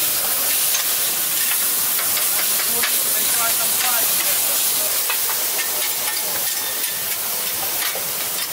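Shaved steak frying on a hot flat-top griddle: a steady sizzle, with the scattered clicks and scrapes of metal spatulas chopping the meat against the plate.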